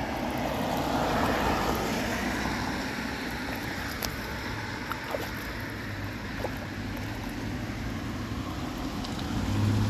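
Floodwater swirling and draining down a just-unclogged drain: a steady rushing wash of water, with a few faint clicks.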